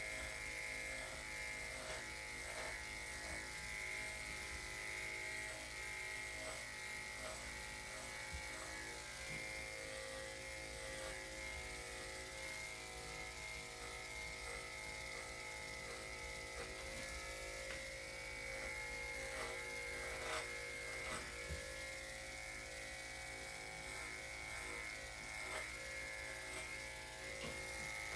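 Electric dog clippers fitted with a #5 blade running with a steady, even hum while cutting through a miniature poodle's thick coat. A few faint clicks sound over the hum.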